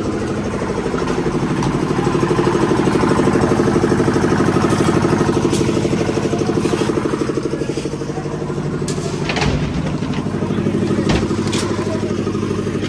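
An engine running steadily with a fast pulsing beat, with a few sharp clanks and knocks in the second half.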